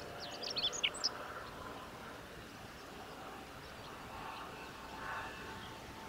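Male chestnut-eared bunting singing one brief song phrase, a rapid run of short high notes lasting about a second, near the start, over faint steady background noise.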